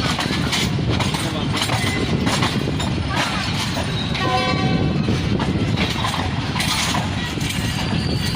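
Diesel-hauled train running by with a steady low rumble and clatter of wheels on rail, and a short single-note horn blast lasting about a second, midway through.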